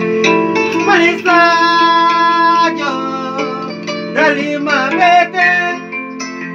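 Kora plucked over sustained electronic keyboard notes, with a voice singing phrases about a second in and again around four seconds in.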